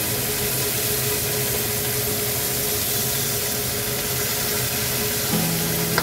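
Bisugo (threadfin bream) frying in oil in a nonstick pan, a steady sizzling hiss. Faint background music comes back in near the end.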